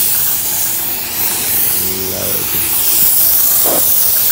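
Gravity-feed paint spray gun hissing steadily with compressed air as it is played over a scooter body panel; the hiss eases slightly for a moment about two seconds in.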